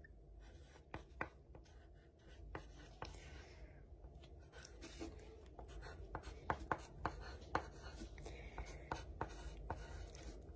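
Wooden pencil writing on paper: faint scratching strokes with many small sharp taps of the point on the page, getting busier and a little louder in the second half.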